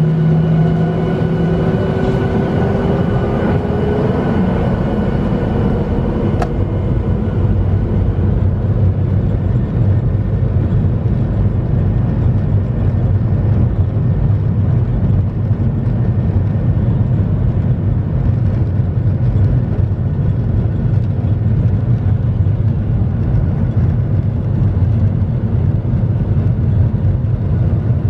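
Boeing 737 jet engines and airflow heard from inside the cabin: a whine that rises slightly in pitch over the first few seconds over a loud, steady low rumble. The rumble carries on unchanged after the higher hiss drops away about six seconds in.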